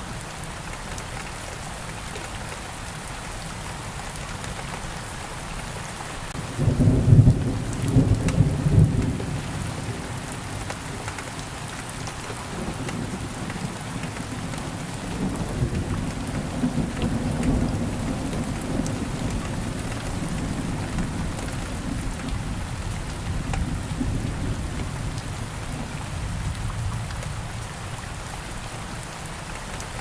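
Steady rain with a loud clap of thunder about seven seconds in, followed by a long, low rolling rumble of thunder that swells and slowly fades away near the end.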